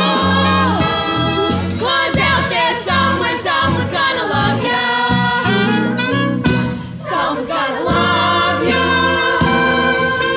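Middle-school cast singing a musical-theatre song together over band accompaniment with bass and drums.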